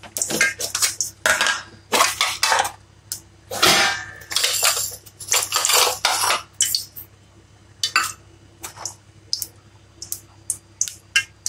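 Steel kitchen utensils clattering: irregular clinks and knocks of metal vessels and spoons. They come thick for the first several seconds, then thin out to scattered ticks.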